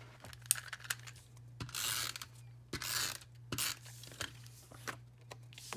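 Stampin' Up! Snail adhesive tape runner drawn across cardstock in a few short strokes, each a brief rasping noise from its gear mechanism, with small clicks in between.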